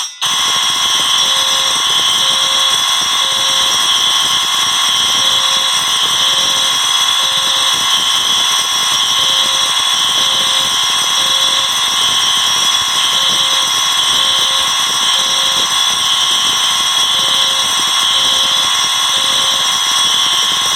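Dozens of fire alarm horns, bells, sirens and speaker-strobes sounding all together, a loud, steady, dense alarm din. Under it a lower tone beeps in repeating groups of three, the temporal-three evacuation pattern.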